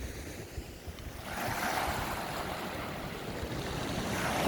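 Sea waves breaking and washing up a round-pebble beach, the surf swelling about a second in and building again near the end, with wind rumbling on the microphone.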